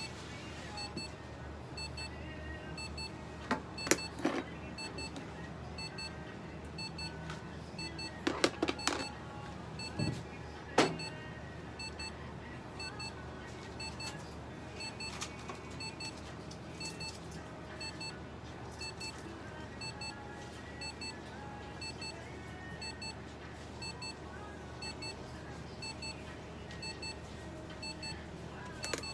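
Faint electronic beeping that repeats in quick, even pairs, with a few sharp clicks about 4, 9 and 11 seconds in.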